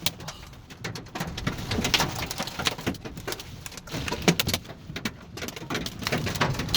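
Quarter-size hailstones hitting a car, heard from inside the cabin as a quick, irregular run of sharp knocks over a steady low rumble.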